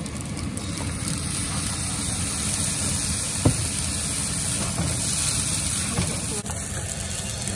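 Rice being stir-fried in a nonstick wok with two wooden spatulas: a steady low rumble and hiss, with one sharp knock about three and a half seconds in as a spatula hits the pan.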